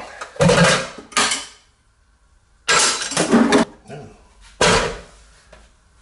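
Hard plastic and metal clattering and knocking in four separate bursts as a Gaggia Classic espresso machine's water tank is lifted out and the stainless-steel machine is handled.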